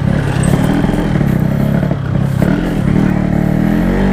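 Two-stroke Yamaha RX King motorcycle engine running through an aftermarket Packing Power PK1 exhaust, its pitch rising and falling with the throttle.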